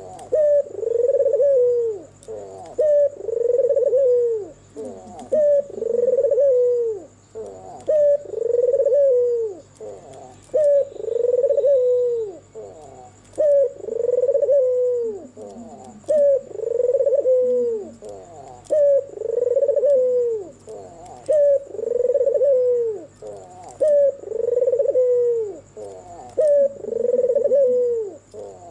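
White, red-eyed ringneck dove (puter putih) cooing over and over, one arched coo about every two seconds.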